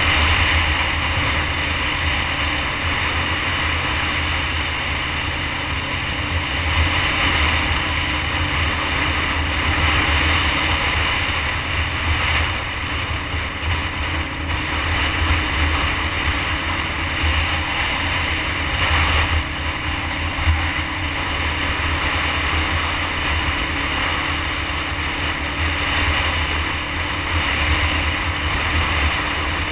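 Motorcycle riding at a steady cruising speed, heard from a camera on the bike: a constant low engine drone under a wash of wind rushing over the microphone.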